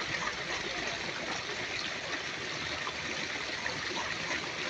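Steady rushing wash like running water, even and unbroken.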